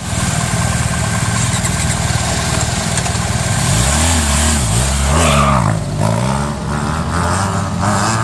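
Motorcycle engine running steadily, then revved up and down a few times from about four seconds in before settling back.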